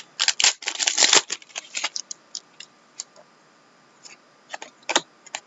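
Plastic trading-card pack wrappers crinkling and rustling as they are handled: a dense burst of crackling in the first second or so, scattered crackles after, and another short burst near the end.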